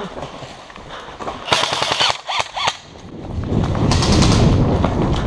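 Airsoft electric rifle firing in rapid bursts of clicks for about a second. After that comes a louder low rumble of handling and movement noise on the camera as the player moves.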